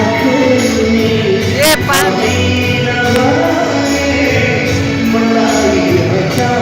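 Loud live band music with singing, a Nepali pop song played over a concert sound system, with a pulsing bass line.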